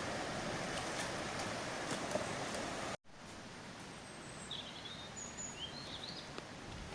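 A steady rushing noise with scattered crackles that cuts off abruptly about three seconds in. Quieter outdoor ambience follows, with a few short high bird chirps.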